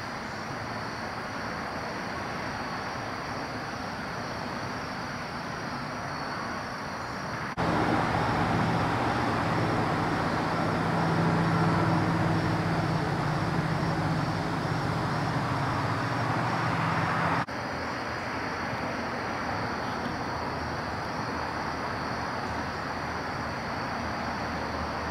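Steady outdoor background noise: a low rumble with a thin, steady high whine above it. For about ten seconds in the middle it turns louder and deeper, starting and stopping abruptly.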